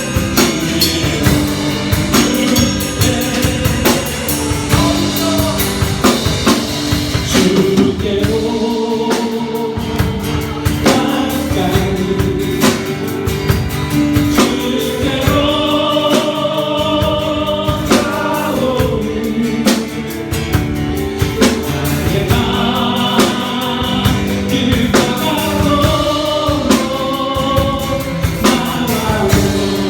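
Congregation singing a Korean worship song with a live band: held sung lines over chords, with drums keeping a steady beat.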